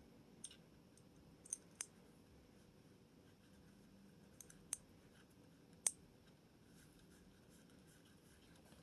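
Faint, sparse small clicks and taps, about six over the first six seconds, from an Allen wrench and screws being worked while the grip screws of a 1911 pistol are tightened.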